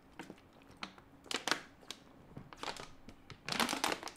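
Thin plastic water bottle crinkling and crackling as it is gripped, squeezed and tipped up to drink from. There are a few crackles at first, and the crackling turns denser and louder near the end.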